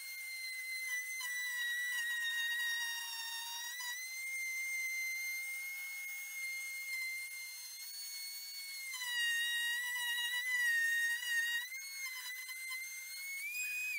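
Trim router with a 3 mm bit cutting through melamine board along a template: a high-pitched motor whine that dips in pitch several times as the bit takes load and recovers, rising again near the end.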